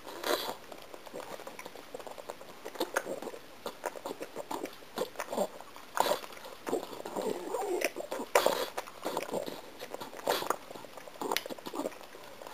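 A pug struggling to chew a piece of gum: irregular wet smacks and clicks of its jaws and lips, coming in quick clusters.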